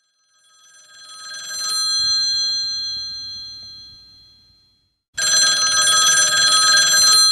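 Telephone bell ringing twice: the first ring swells up and slowly fades away, then a second ring starts suddenly about five seconds in.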